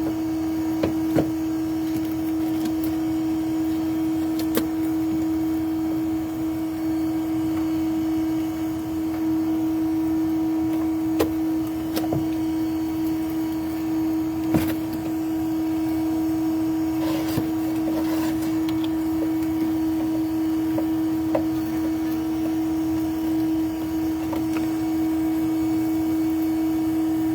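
Steady motor drone at one unchanging pitch, with scattered knocks and scrapes from a hand tool working into the hive cavity.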